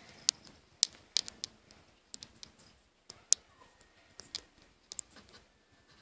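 About a dozen sharp, irregular clicks and light crackles, scattered unevenly through the few seconds.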